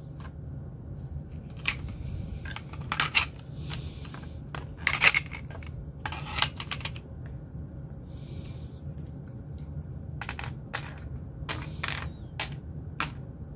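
Irregular light clicks and knocks of thin 3D-printed plastic bowls being lifted off a metal flex build plate and stacked into one another, over a steady low hum.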